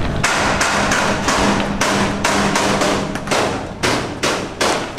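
A rapid run of sharp knocks, about two or three a second, each dying away quickly.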